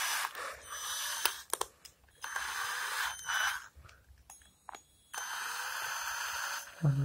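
Cordless drill motor run in short bursts, spinning its keyless chuck to take up an 8 mm masonry bit. There are two longer runs of about a second and a half each, with a brief one in between.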